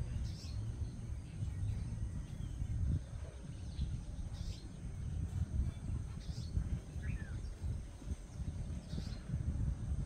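Small bird giving short, high chirps every second or two, with one lower falling note about seven seconds in, over a steady low rumble.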